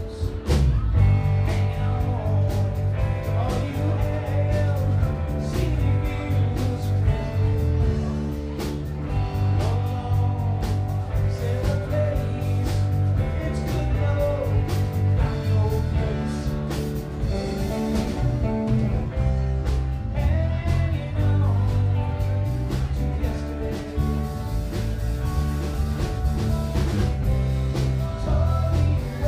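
A live rock band playing loud in a club: electric guitars, bass guitar and a drum kit, with a voice singing. The full band comes in hard just after the start and keeps going steadily.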